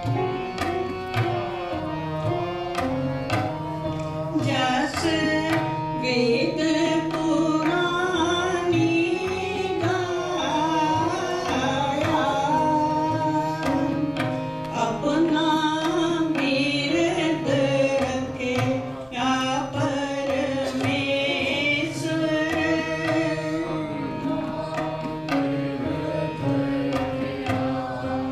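Sikh kirtan: a woman's voice sings a Gurbani hymn over harmonium and electric keyboard, with tabla keeping a steady, quick rhythm. The singing runs through the middle, with instrumental passages about four seconds in and again near the end.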